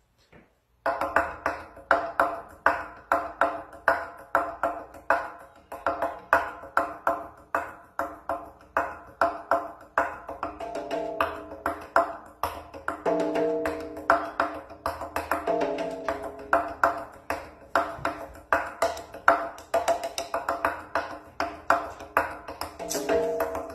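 Congas played by hand in a fast, steady rhythm of sharp strikes and ringing drum tones, starting about a second in.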